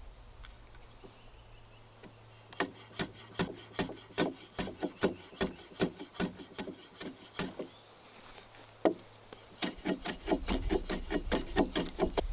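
Repeated rubbing strokes of a hand tool cutting into an 8x8 timber sill plate, about two to three strokes a second. A single stroke comes about nine seconds in, then a quicker run of strokes near the end.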